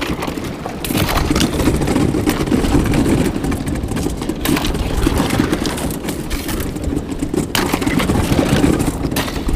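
Kayak hull pushing through a thin sheet of pond ice, breaking and grinding it in a continuous crackling crunch that gets louder about a second in.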